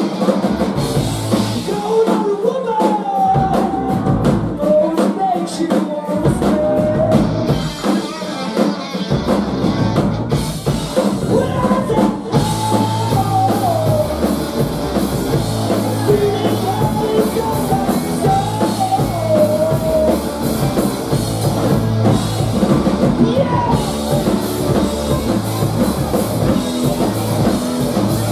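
Live rock band playing loud on drum kit, electric bass and electric guitar. In the first ten seconds the low end stops and starts in short breaks, then settles into a steady driving rhythm.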